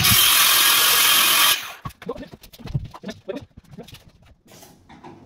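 Circular saw cutting through a long kitchen backboard panel, running loud for about a second and a half and then cutting off. Light knocks and clatter follow as the cut board is handled.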